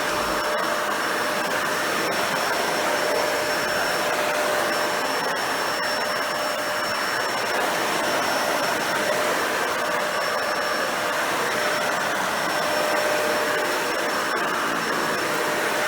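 Dyson Ball Animal 2 (UP20) upright vacuum running steadily while vacuuming a low pile area rug, a constant motor rush with a steady high whine.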